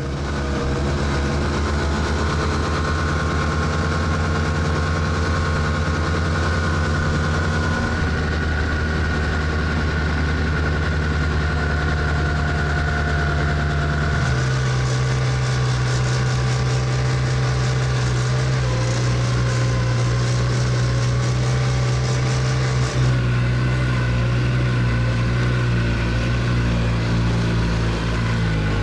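A motor vehicle's engine running steadily, its note shifting to a new pitch a few times.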